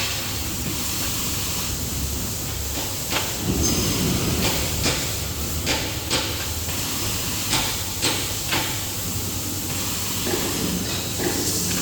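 Maxi roll paper towel band saw cutting machine running: a steady mechanical hum and hiss with sharp clacks, often in pairs about half a second apart, every second or so.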